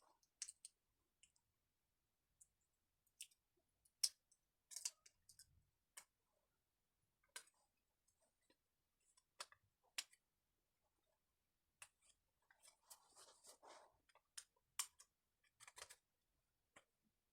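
Faint, irregular clicks and taps of small carburetor parts and tools being handled as a chainsaw carburetor is taken apart, with a short rustle about thirteen seconds in.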